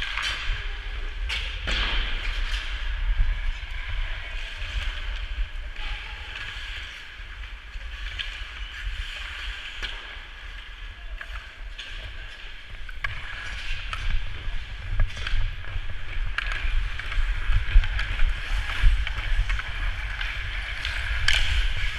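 Hockey skate blades scraping and carving across the rink ice, with a low wind rumble on the skater's body-worn camera microphone. A few sharp clacks stand out along the way.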